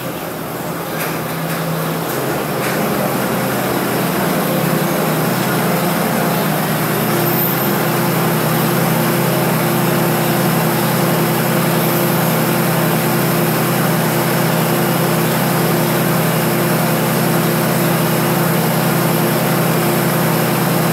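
A diesel train engine running steadily, growing louder over the first few seconds and then holding at a constant pitch, with a steady hum added about seven seconds in.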